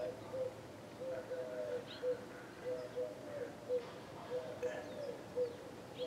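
Birds calling: a steady run of short, low notes, two or three a second, some gliding slightly upward, with a few faint high chirps above them.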